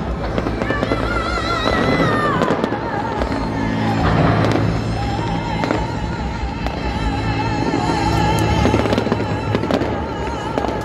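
New Year's fireworks going off in quick, irregular bangs and crackles, over music with long held wavering notes.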